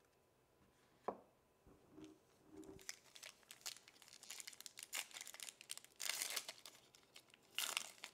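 Foil trading-card pack wrapper crinkling in the hands and being torn open, with the loudest rips about six and seven and a half seconds in. A single knock comes about a second in.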